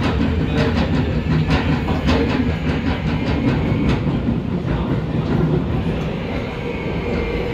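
Seoul Subway Line 2 train running, heard from inside the car: a steady rumble with rapid wheel clicks over the track that thin out after about four seconds.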